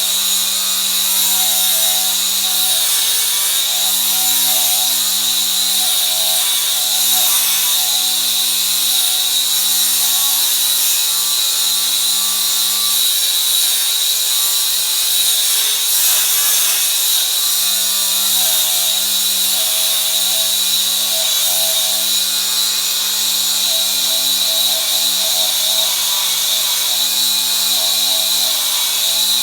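Hyper Tough 20V cordless 4.5-inch angle grinder with a 60-grit flap disc grinding old paint off a railing. It runs steadily, and its pitch dips slightly each time it is pressed into the work.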